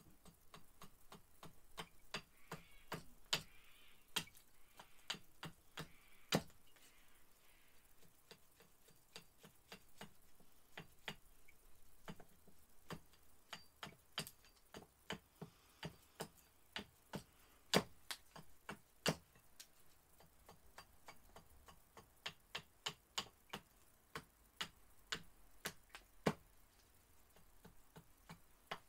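Gränsfors Bruk Large Swedish Carver axe hewing a split cherry spoon blank held on a chopping stump. The axe makes short, sharp chopping knocks at an uneven pace, at times in quick runs of about two a second.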